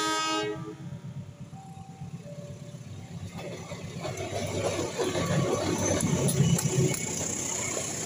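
A diesel locomotive's horn sounds once, briefly, at the start, and a two-tone electronic warning chime alternates after it. Then the locomotive-hauled passenger train approaches and passes close, its rumble growing, with wheels clicking over the rail joints.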